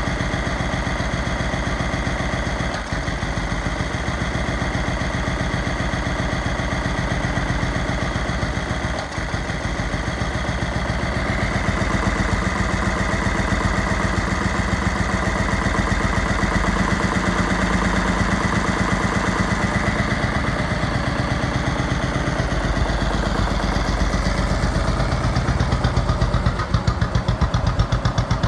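Rebuilt 12.5 hp single-cylinder flathead engine of a Murray riding mower idling steadily on its break-in run, with new rings and a honed cylinder. It runs smoothly with no knocks or ticks, dipping briefly twice early on and pulsing more strongly near the end.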